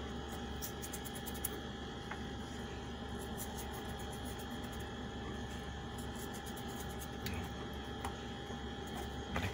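A steady background hum holding several steady tones, with faint light clicks and rubbing as a hand rubs salt onto a raw grouper.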